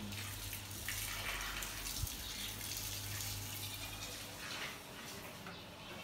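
Shower water running and spraying in a small tiled shower stall, a steady hiss, with a low steady hum that stops a little after four seconds in.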